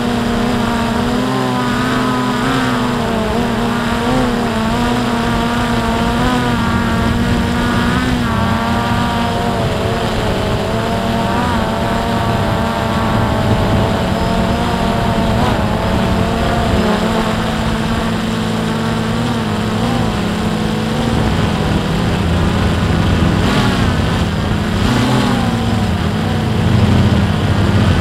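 Drone's motors and propellers buzzing in flight, several pitches wavering up and down as the motors change speed, a little louder near the end.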